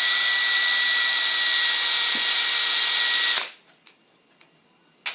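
Electric drill running at steady speed, drilling out the broken stub of a fishing rod's tip section so the end eye can be refitted. It gives a high steady whine and stops suddenly about three and a half seconds in, followed by a short click near the end.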